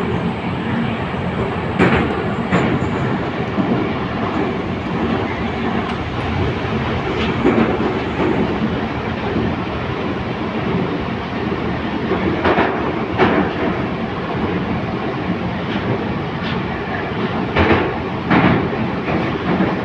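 Inside an 81-722.1 metro car running at speed between stations: a steady rumble from the wheels and running gear, with sharp clacks from the track every few seconds, in pairs a couple of seconds in, past the middle and near the end.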